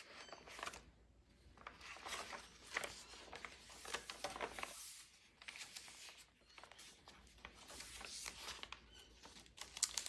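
Heavy matte paper pages and flips of a handmade junk journal rustling and crinkling as they are handled and turned over by hand, in soft, irregular rustles.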